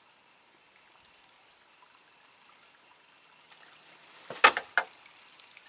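Quiet river surroundings, then two sharp water splashes close together about four and a half seconds in, the first the louder.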